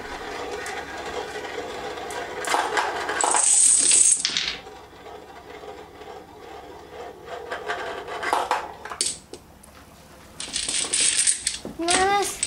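Dominoes toppling in a chain and clicking against one another on a small felt-topped pool table, a dense run of clicks loudest three to four seconds in. About ten seconds in comes another burst of clatter as hands scoop the fallen dominoes together, and a child's voice rises at the very end.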